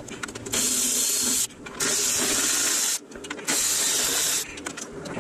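Cordless battery ratchet with a 9/16 socket running in three short bursts of about a second each, loosening bolts to take apart a pool pump.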